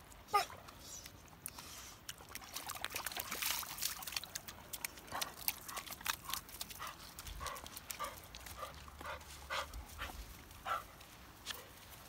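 A dog whining in short, high-pitched whimpers, repeated about every half second through the second half. There is a brief rush of noise about three seconds in.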